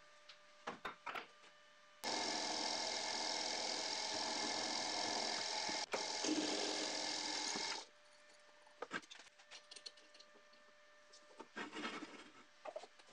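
Drill press running, its twist drill cutting into a metal bar clamped in a vise: a loud steady machine sound of about six seconds that starts about two seconds in and stops abruptly. Light clicks and knocks of handling before and after it.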